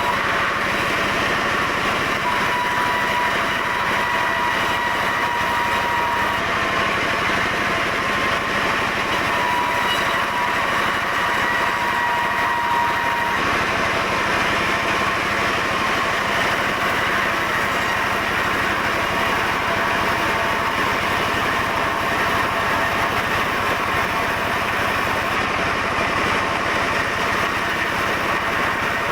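Sawmill saw machinery running steadily through the cut of a dense mahogany log: a continuous mechanical drone with a thin high whine over it.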